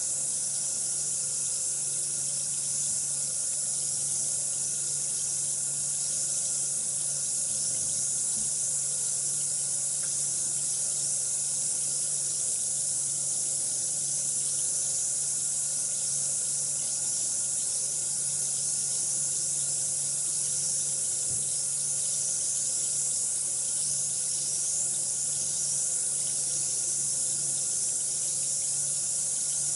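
Bath bomb fizzing in water, a steady high hiss that does not let up, with a faint low hum underneath.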